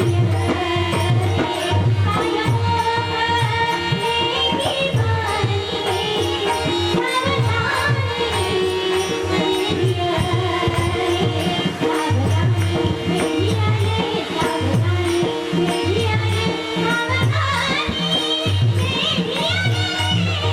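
Indian folk or devotional-style music with a steady hand-drum rhythm. A girl's singing voice carries the melody in places.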